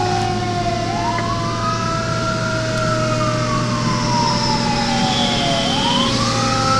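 Fire apparatus siren on a slow wail: it rises for about two seconds, falls more slowly for about three, then starts rising again near the end. A steadier tone slides slowly lower underneath, over a constant low engine drone.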